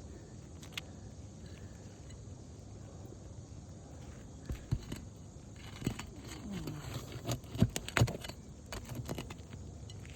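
Scattered clicks, taps and metal clinks of hand tools working under asphalt shingles to get at roofing nails, with a few sharper knocks about three quarters of the way through.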